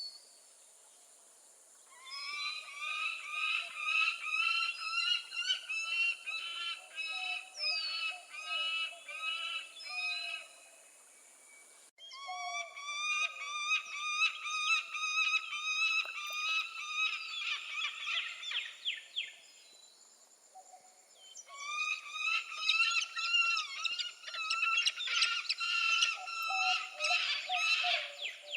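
Peregrine falcon giving its rapidly repeated cacking alarm call, three long runs of short notes several seconds each with brief pauses between.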